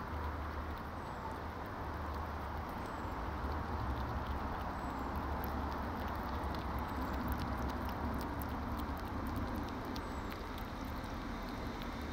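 European hedgehog eating and snuffling in the grass close to the microphone: a run of small, sharp crackling clicks from chewing and nosing through the grass, over a steady low rumble.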